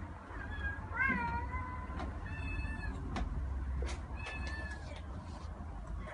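A domestic cat meowing four times in short pitched calls, with a few light clicks between the meows over a low steady hum.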